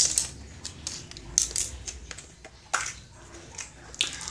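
Handling noise from a small plastic surprise egg being worked open: a few irregular, sharp plastic clicks and crinkles.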